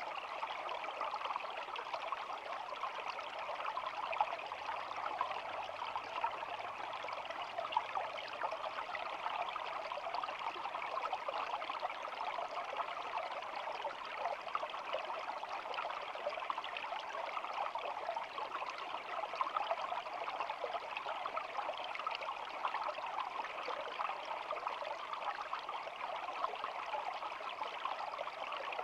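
Shallow stream babbling steadily, a continuous rush of small splashes with no pauses or changes.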